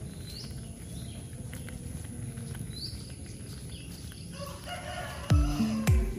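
Outdoor ambience with a short rising bird chirp every couple of seconds. About five seconds in, background music comes in with a loud, deep bass beat that drops in pitch, about two beats a second.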